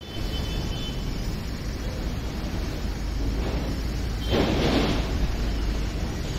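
Steady low outdoor rumble, with a louder rush of noise about four and a half seconds in that lasts under a second.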